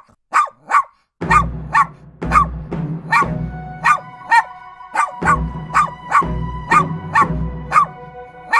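A dog barking over and over, about two barks a second, over background music with a heavy bass beat.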